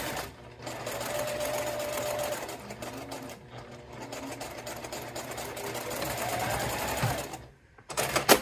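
Sewing machine running steadily as it stitches a rolled hem, with a brief pause about half a second in. It stops at about seven seconds, and near the end there are a couple of sharp clicks.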